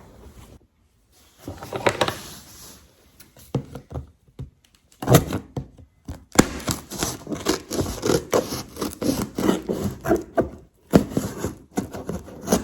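Scissors cutting packing tape on a cardboard box, with a run of scraping, rustling and knocks from the cardboard as it is opened.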